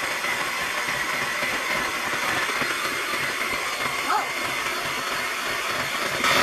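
Hamilton Beach electric hand mixer running steadily on low speed, its beaters whirring through raw eggs in a mixing bowl.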